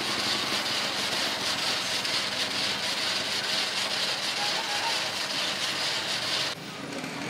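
Steady hissing noise from a charcoal skewer grill, cutting off abruptly near the end and giving way to quieter background noise.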